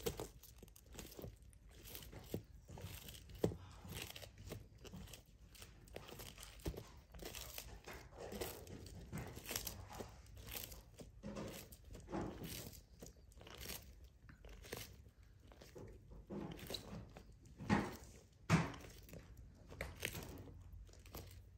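Sulcata tortoise biting and crunching through its food: a run of irregular soft crunches, with two louder ones about three-quarters of the way through.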